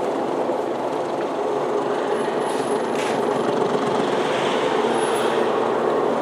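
Electric cello bowed and amplified through a speaker, producing a dense, steady, noisy drone rather than a clear melody.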